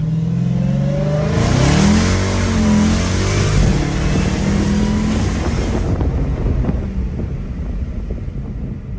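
Dodge Hellcat's supercharged 6.2-litre HEMI V8, breathing through gutted stock catalytic converters, revs up about a second in with a rushing hiss, holds for a few seconds, then drops back to a steady lower run.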